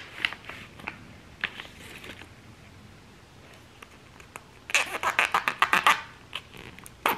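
Light rustling and crinkling of a plastic MRE heater bag, then, about five seconds in, a quick run of scissor snips cutting through the top of a foil MRE food pouch.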